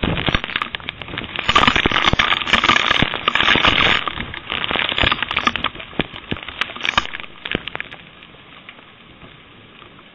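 Storm rain coming down hard, with many sharp taps of drops or debris striking close to the microphone, heard through a home security camera's thin, muffled audio. The downpour is heavy for the first half and eases to a steady hiss about eight seconds in.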